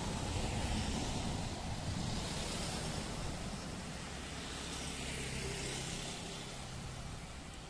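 Distant engine noise: a steady rushing sound with a faint low hum underneath, slowly fading.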